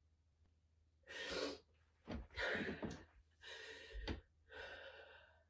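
A woman breathing heavily, four audible breaths in a row starting about a second in: the strained breathing of someone holding back tears.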